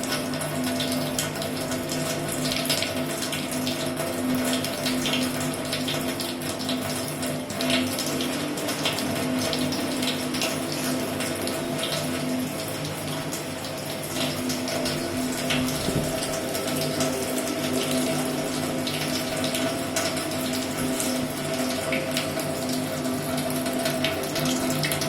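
Water running steadily from a tap or pump outlet, with a steady hum and frequent small splashes as something plays in the stream.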